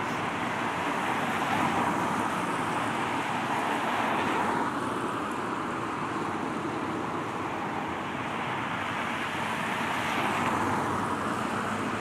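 Steady road traffic noise: a continuous wash of passing cars that swells a little a couple of times.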